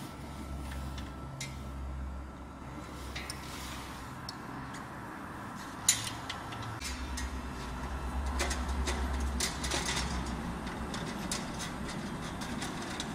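Compact metal-strip slitting machine running in two short spells with a low hum, while the slit metal strips on the rewind coils are handled: scattered clicks and metallic clinks, the loudest a sharp clank about six seconds in.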